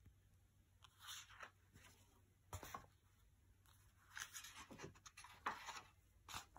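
Pages of a picture book being turned by hand on a table: a few faint, short rustles and brushes of paper.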